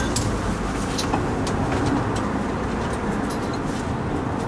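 A steady low rumble, with scattered light clicks of tongs and ceramic bowls being handled.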